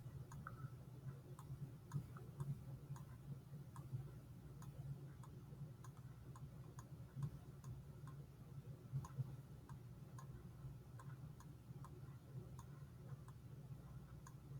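Faint, steady ticking of a clock, about two ticks a second, over a low steady hum of room tone.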